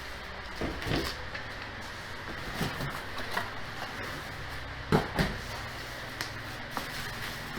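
Scattered knocks and rustles of an office chair's base being handled in its bubble wrap, the loudest knock about five seconds in.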